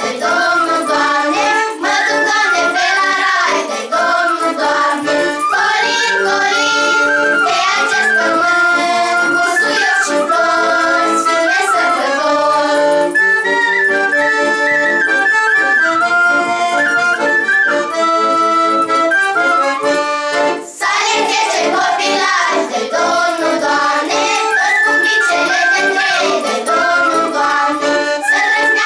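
A girls' choir singing a Romanian Christmas carol (colindă) together, accompanied by a wooden shepherd's flute. Partway through, the voices stop for an instrumental passage of several seconds, then the singing comes back in.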